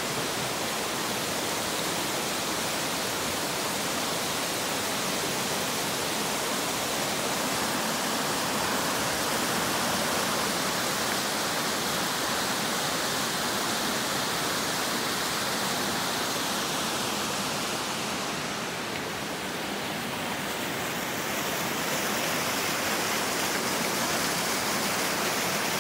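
Lower Bertha Falls, a mountain waterfall cascading down rock ledges: a steady rush of white water, dipping slightly in level a little past the middle.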